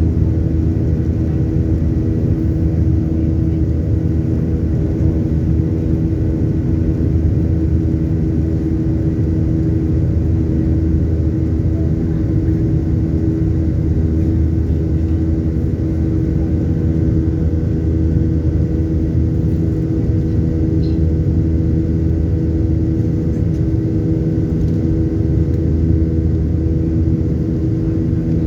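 Boeing 737-800's CFM56-7B jet engines and airflow heard inside the passenger cabin: a loud, steady drone with a low rumble and a few steady hum tones, unchanging throughout.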